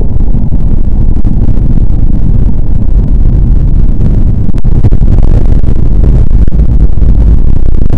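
Loud, continuous low rumble of a soundtrack slowed sixteen times and bass-boosted, pushed close to full scale throughout.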